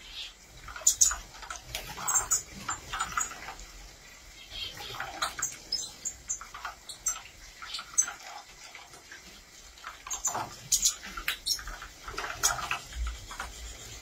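A flock of European goldfinches bathing in a shallow basin of water: irregular flurries of splashing and wing-fluttering in the water, with short high chirps scattered among them.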